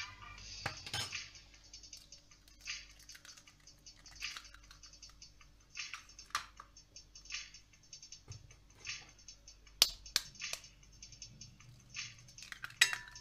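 Eggs being cracked into a glass mixing bowl: scattered light clicks and taps of shell, with sharper knocks around ten seconds in and again near the end.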